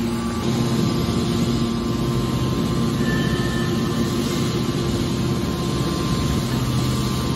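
Hydraulic scrap metal baler's power pack running with a steady hum.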